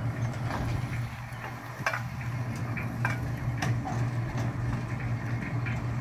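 An engine running steadily with a low, even hum, with scattered clinks and knocks of tools and a wheelbarrow over it.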